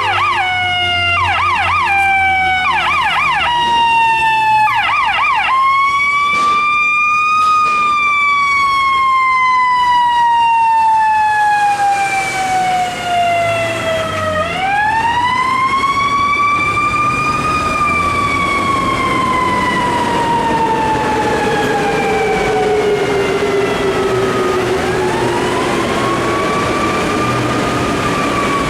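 Fire engine siren on an emergency run: a slow wail that rises over about three seconds and falls over about seven, cycle after cycle. In the first five seconds, quick up-and-down yelp bursts sound over the wail.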